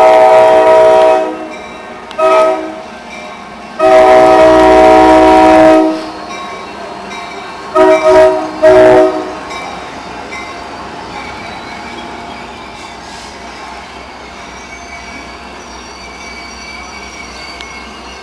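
Amtrak F40PH diesel locomotive's air horn sounding a chord of several notes: a long blast, a short one, another long one, then two quick short toots. After the horn the passing train's wheels run and clatter steadily on the rails, with a faint high squeal near the end.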